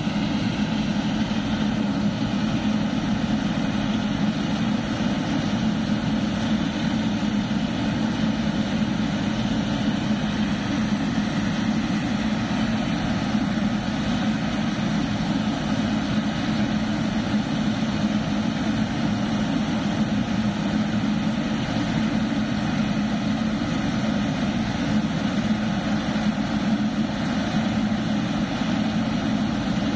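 Boeing 777-300ER's GE90 jet engines running steadily at low power, a constant rushing noise with a steady low hum that neither rises nor falls.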